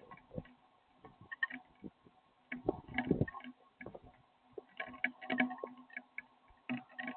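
Irregular soft taps and knocks, some coming in quick clusters of a few, over a steady low electrical hum.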